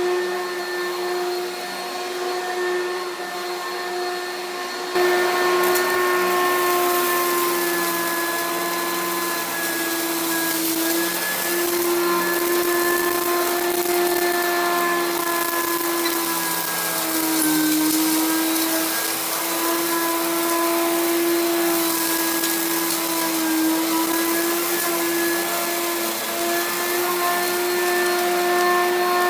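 Upright XL Pro Plus vacuum cleaner running on carpet, a steady motor whine with rushing air, as it sucks up clumps of fluff in a mess test. It gets louder about five seconds in, and its pitch dips briefly a couple of times as the nozzle takes up debris.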